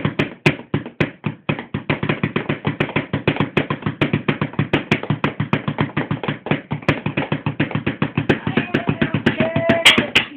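Two wooden spoons drummed fast on a rolled-up foam camping mat, a steady stream of dull taps at about seven strikes a second.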